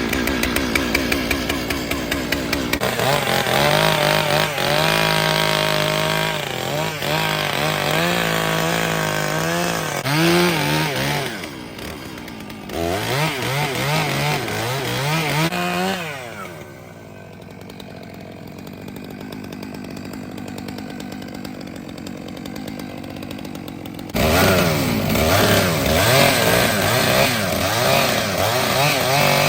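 Large gas chainsaw revving and cutting into an oversized log, its engine pitch rising and falling as it bogs and recovers in the wood. It drops to a lower, steadier run for several seconds past the middle, then picks back up to full throttle near the end.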